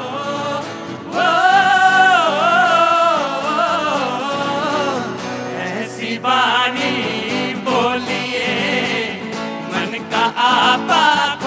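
Sung music: a solo voice in wavering, ornamented lines over a steady instrumental backing. It grows louder about a second in.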